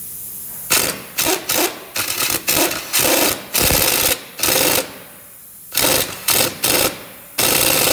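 Impact gun hammering in about ten short bursts with brief pauses between, tightening the nut on a Lincoln Navigator's new front sway bar link.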